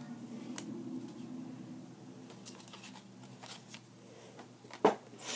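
Magic: The Gathering cards being handled and set down on a playmat: light scattered taps and slides, with one sharp snap near the end.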